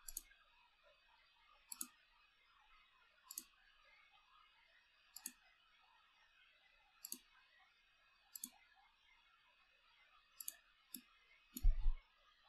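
Computer mouse buttons clicking, single clicks every one to two seconds, then a quick pair of clicks and a louder click with a low thump near the end, over a faint steady hiss.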